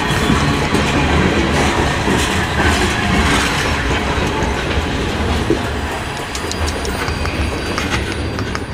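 Covered grain hopper cars of a freight train rolling past, their wheels clacking over the rail joints. The sound fades over the last few seconds as the final car goes by.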